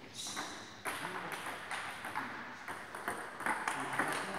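Table tennis balls clicking off bats and table tops during rallies, a quick irregular run of light clicks from more than one table.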